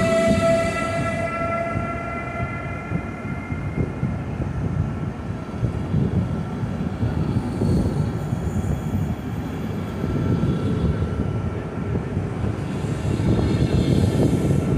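Passenger coaches behind a Siemens Taurus electric locomotive rolling past at close range: a steady rumble of wheels on rail, with the locomotive's electric whine of several steady tones fading out over the first few seconds.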